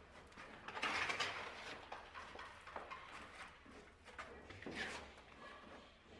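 Faint scraping and knocking from work with hand tools, loudest about a second in.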